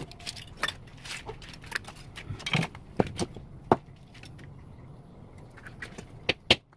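Scattered sharp clicks and light clinks of small hard parts or tools being handled during a repair. The clicks come irregularly for about four seconds, pause briefly, then a couple more come near the end.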